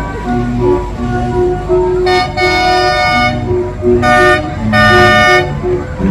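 Horn of a miniature train locomotive sounding three blasts over background music: a long blast, a short one, then another long one.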